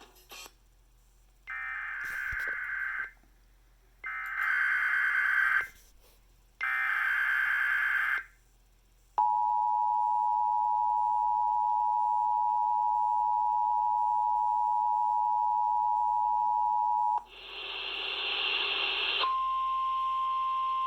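Emergency Alert System header: three short buzzy bursts of SAME digital data, then the two-tone attention signal held steady for about eight seconds. It is followed by a brief burst of noise and then a single steady tone.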